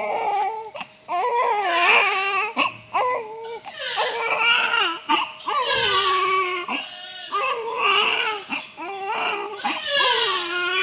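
Newborn baby crying in a run of repeated wailing cries, each about one to one and a half seconds long, with short catch-breaths between them.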